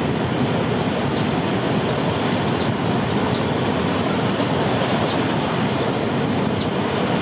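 Waterfall pouring into a river, a steady rushing roar of falling water, with a few faint short high chirps scattered through it.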